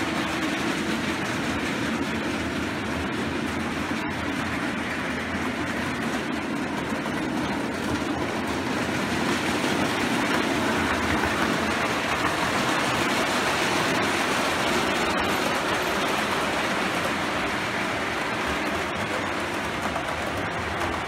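O gauge model trains running on the layout's track: a steady rolling rumble of wheels on rail and electric motors, swelling a little in the middle.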